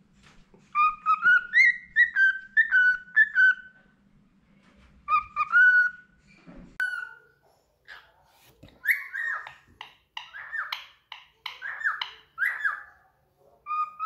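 Cockatiel whistling: short phrases of clear rising notes, then a quicker run of chirpy whistles in the second half.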